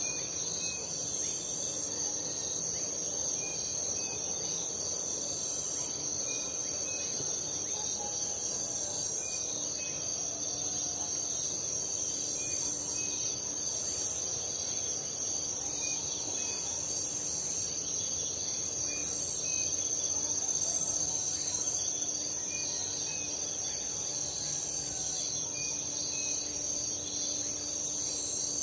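Night chorus of crickets trilling steadily, with a faster high pulsing chirp at about three a second over it. Short chirps recur every couple of seconds, over a low steady hum and faint calls that fill in a night frog and insect ambience.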